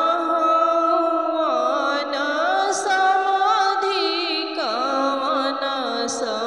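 A woman singing a traditional Bhojpuri son's-wedding folk song (beta vivah geet). Her single voice holds long, wavering notes and slides between them.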